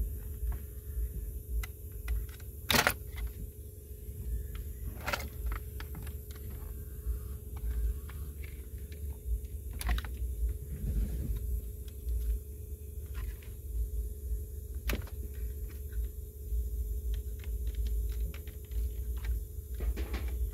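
Scattered plastic clicks and rattles of dashboard wiring connectors and console parts being handled, with a few sharper clicks, the loudest about three seconds in, over a low rumble.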